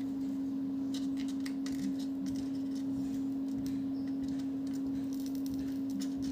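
Steady low hum with a few faint small clicks and ticks, from the wire and tools being handled.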